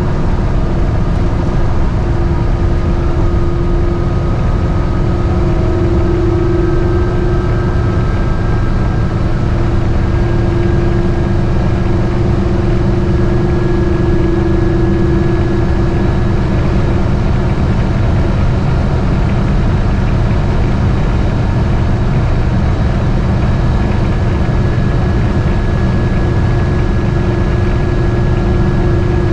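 Cab noise of a GMC Motorhome cruising at highway speed while towing: a steady, loud low drone of engine and road, with a faint steady whine above it.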